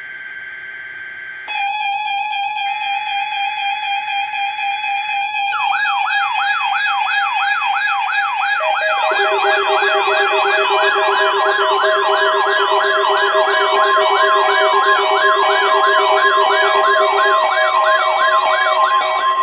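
NOAA Weather Radio tone-alert test setting off several weather alert radio receivers at once. Their alarms join in layers: steady beeping tones first, then a fast warbling siren tone from about five seconds in, with more steady tones including the warning tone added around nine seconds in, building to a loud combined alarm.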